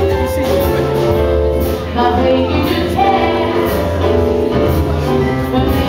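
Live jazz vocal: a woman singing a melody into a microphone, accompanied by piano and amplified acoustic guitar.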